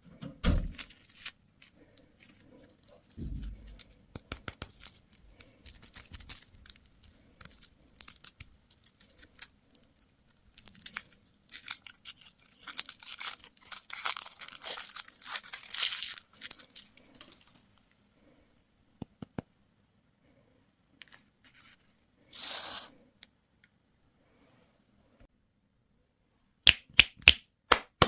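Candy packaging being torn open and crinkled by hand: long stretches of crackling rustle with scattered clicks, a short tearing sound a little past the middle, and a few sharp clicks near the end.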